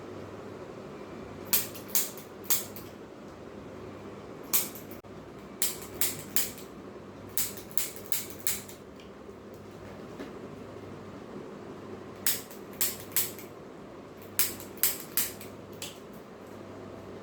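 A series of sharp clicks or cracks during chiropractic treatment, coming in quick clusters of two to four about every few seconds. A steady fan-like hum runs underneath.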